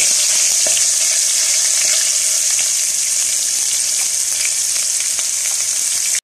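Ginger-garlic paste frying in hot oil in a nonstick wok, a loud, steady sizzle. There are a few light taps of a wooden spatula in the first second.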